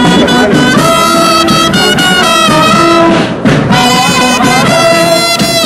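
Marching brass band playing a tune, led by euphoniums, in held brass notes with a brief break about three and a half seconds in.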